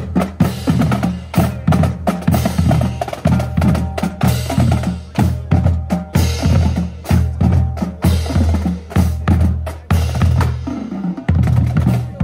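Marching band playing as it passes: drum line with bass drums, snare drums and cymbals beating a steady march rhythm under held brass chords from tubas, trombones and horns.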